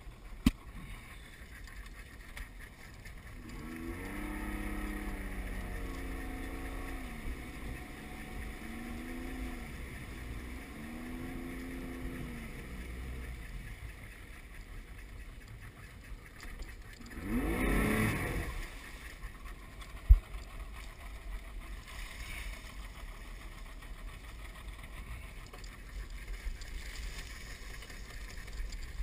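A skiff's motor running, its pitch rising and falling several times as it speeds up and slows, with a brief loud surge a little past the middle and a single sharp knock just after.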